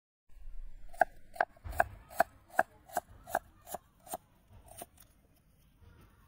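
Kitchen knife slicing shallots on a round wooden chopping board: about a dozen even chops, roughly two and a half a second, the last ones fainter, stopping about five seconds in.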